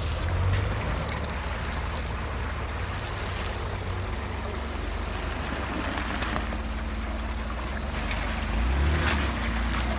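Jeep Wrangler's engine running at low revs as it crawls through a shallow rocky creek, its tyres churning and splashing the water, growing louder near the end.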